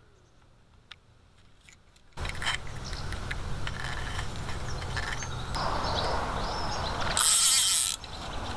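Fly rod and reel being handled: a few faint clicks, then from about two seconds in a loud stretch of low rumble and rustling. Near the end comes a louder burst of high, rattling clicks as the reel and line are worked.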